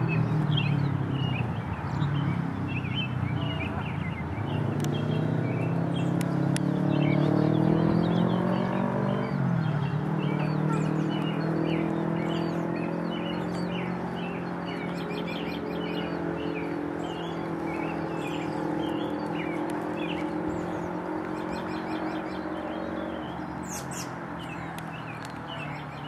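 A car engine accelerating: its pitch climbs for several seconds, drops sharply at a gear change about ten seconds in, then holds steady and slowly fades. Small birds chirp throughout.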